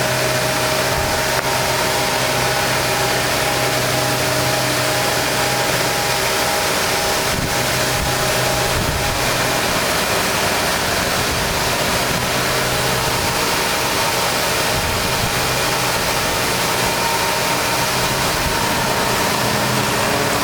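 CNC double-sided wood shaper running its milling cutter spindles on a workpiece: a steady machine noise with a hum of spindle tones.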